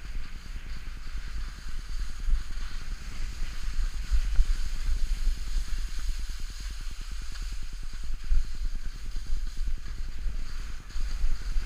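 Wind buffeting a body-worn camera's microphone as a skier descends, a heavy uneven rumble, with the steady hiss of skis sliding over snow above it.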